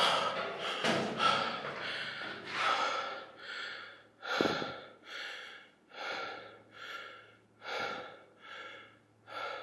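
A man panting hard, with a heavy breath a little more than once a second, out of breath from climbing the ladders inside a crane.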